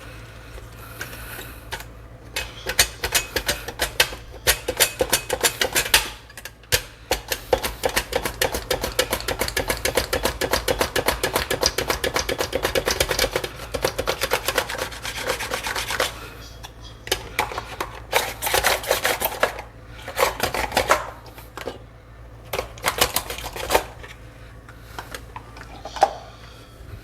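Potato being sliced on a mandoline slicer: quick back-and-forth strokes across the blade, in runs broken by short pauses, with the longest unbroken run in the middle.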